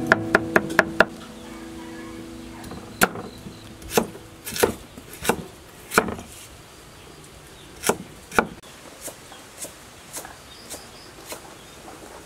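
Knife chopping on a wooden cutting board: quick rapid chops through minced garlic for about the first second, then slower single strokes slicing ginger, getting fainter near the end.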